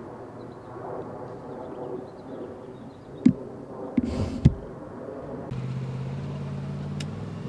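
A few sharp knocks and a brief rustle, then a vehicle engine's steady low hum starting about five and a half seconds in.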